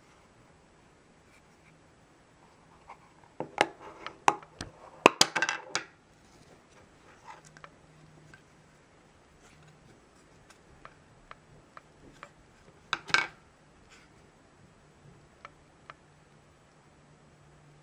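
Hard plastic clicking and clattering as the black case of a handheld battery-powered UV lamp is pried apart and handled. There is a cluster of sharp clicks from about three and a half to six seconds in and another short cluster near thirteen seconds, with scattered light ticks between.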